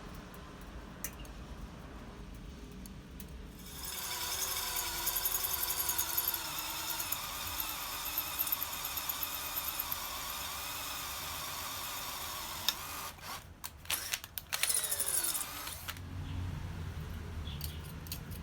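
A power tool's electric motor running on metal for about nine seconds. It cuts off abruptly, restarts in a few short bursts, then winds down with a falling whine.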